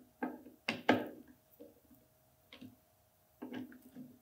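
Look Pivot ski binding heel piece handled by hand: a series of sharp clicks and knocks, the loudest about a second in.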